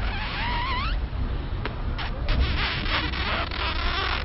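Mouth noises made with pursed lips pressed close to a phone's microphone: a short whistle-like tone that bends up and down in the first second, then a run of breathy puffs and lip noises.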